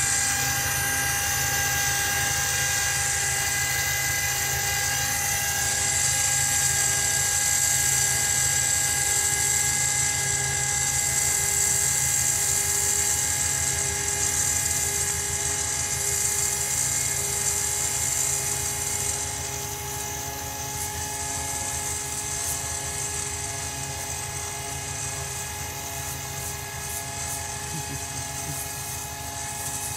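Electric winch on a stuck Lada 4x4 (Niva) running steadily with a high motor whine over a low hum as it pays out cable. The sound drops a little in loudness about two-thirds of the way through.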